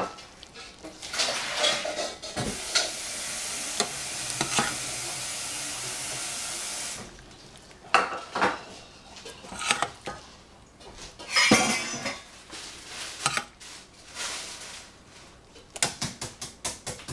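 Metal ladle scraping and clinking against a stainless steel saucepan and a ceramic bowl while stewed tomato and egg is ladled out. A steady hiss runs for several seconds near the start and cuts off suddenly, and quick clinks cluster near the end.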